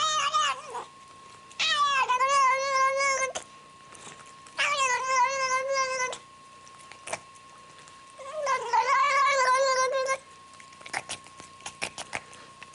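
Tabby cat yowling in long, wavering calls: three of them, about three seconds apart, with a few light clicks near the end.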